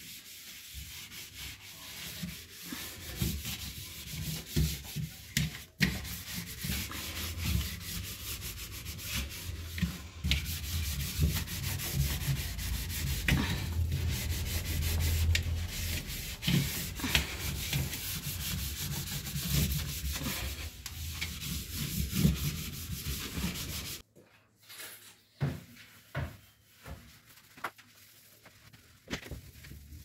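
Sponge scrubbing the inner plastic walls of a refrigerator: steady, rough rubbing strokes. The rubbing cuts off suddenly about four-fifths of the way through, leaving faint, scattered knocks and wipes.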